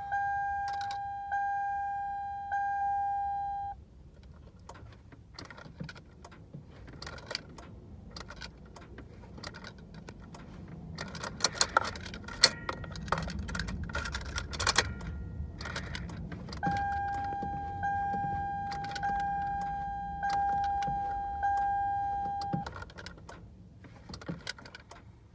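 A 2005 Toyota Sienna's key-reminder chime dinging about once a second, which stops a few seconds in. Keys jangle and click in the ignition, with a low rumble and sharp clicks in the middle. The chime starts again for about six seconds near the end.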